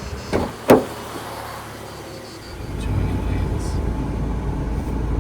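Two sharp knocks, then a steady low rumble of a road vehicle that starts about halfway through.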